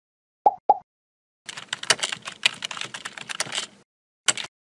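Computer keyboard typing sound effect: a quick run of key clicks lasting about two seconds, with two short pops before it and a single click near the end.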